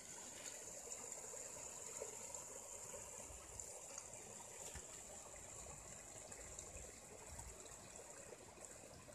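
Faint, steady trickle of running water from a small stream, with a few light clicks.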